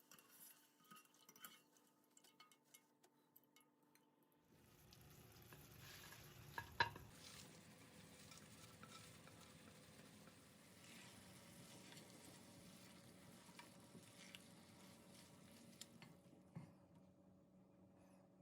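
Quiet clicks of a utensil, then food frying in a pan with a steady faint sizzle from about four seconds in, as it is stirred; one sharp knock of utensil on pan about seven seconds in is the loudest sound.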